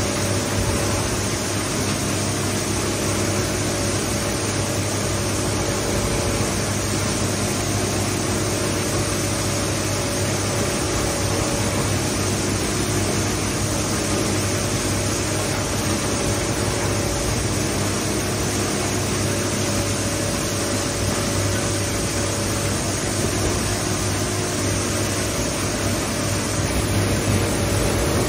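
Industrial shredder running empty: a steady machine hum from its motor and drive with no material being cut, rising slightly in loudness near the end.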